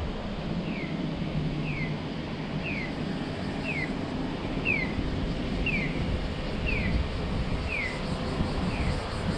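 Audible pedestrian crossing signal chirping: a short, falling electronic chirp repeated evenly about once a second, over the low hum of the car.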